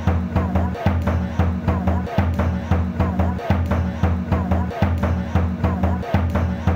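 Music with a steady drum beat over a low, repeating bass pattern that restarts about every second and a third.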